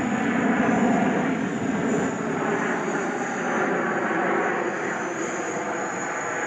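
Jet engines of a seven-aircraft formation of Aermacchi MB-339 jet trainers passing overhead: a steady rushing jet noise with a thin high whine, slowly fading.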